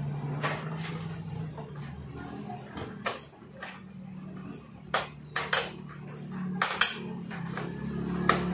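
Scattered sharp clicks and knocks of plastic parts being handled and pressed into place on a CFMoto 400NK motorcycle's headlight cowl, about five of them loud, over a low steady hum.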